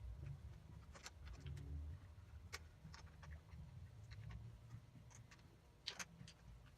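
Faint, scattered clicks and light taps of small parts being handled, about half a dozen, the sharpest around six seconds in, over a low hum.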